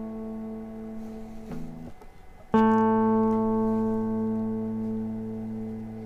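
Clean electric guitar sounding a single low A note that rings and slowly fades. Around two seconds in it wavers and briefly cuts out, then the A is sounded again with a sharp attack and sustains, slowly dying away.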